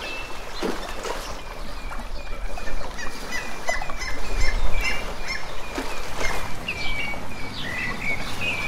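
Birds chirping: many short, quick calls repeated again and again over a steady rushing background.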